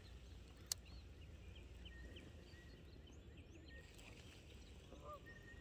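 Quiet open-air background: faint birds calling in short chirps over a low wind rumble, with one sharp click a little under a second in.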